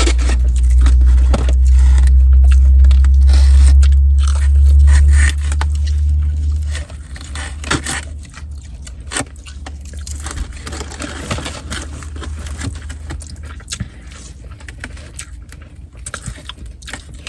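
Close-up chewing and crunching of fried chicken and fries, with scraping and crackling clicks. A heavy low rumble underlies the first five seconds, then drops away.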